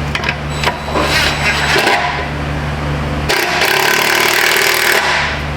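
Power impact wrench running for about two seconds in the second half, tightening an exhaust clamp nut on the new muffler, after a few clicks of socket and tool handling.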